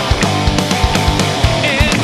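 Heavy metal song playing, with guitars over a steady drum beat; a wavering high melody line comes in near the end.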